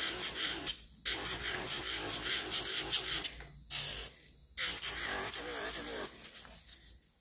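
Electric nail file (e-file) with a sanding band grinding acrylic nail around the cuticle and sidewalls, in short passes with brief breaks about a second in and twice around four seconds in, then trailing off near the end.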